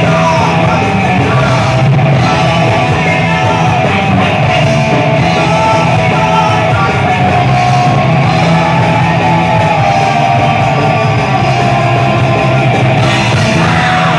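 Thrash metal band playing live, with distorted electric guitars, bass and drums, and a woman singing into the microphone.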